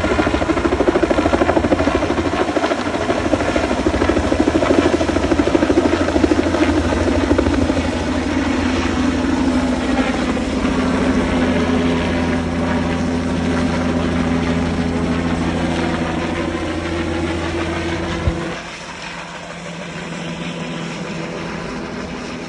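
Medical helicopter's two-bladed rotor and turbine as it lifts off and climbs away: a loud, steady rotor beat with a steady whine over it. About three-quarters of the way through the sound drops off suddenly, then fades as the helicopter flies off.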